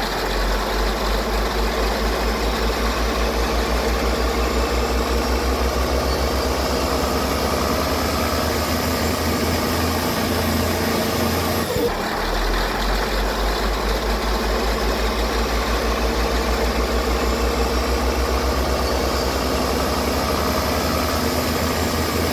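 Diesel engine of a Caterpillar 637 scraper fitted with a Switchblade turbocharger, running steadily with an even low pulse. A faint high whine slowly rises in pitch twice, and there is a brief dip about halfway through.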